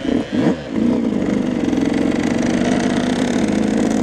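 Yamaha YZ125 two-stroke motocross engine, revved in quick blips for about the first second, then pulling steadily at high revs as the bike rides off.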